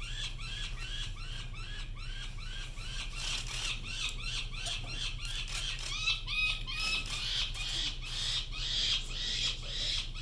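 Peregrine falcon nestling calling over and over, about three short rising-and-falling calls a second. From about six seconds in, a lower-pitched series of calls overlaps.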